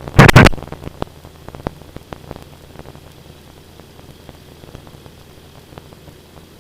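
Aircraft radio/intercom feed between transmissions: a short loud burst of squelch in the first half second, then low hiss and crackle with scattered sharp clicks over a faint steady hum.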